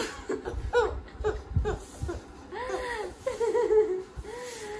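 A young woman laughing in a string of short bursts.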